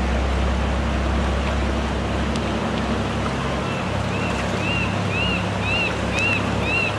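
Steady rush of shallow river water running over a stony bed. From about halfway a high chirp repeats about twice a second.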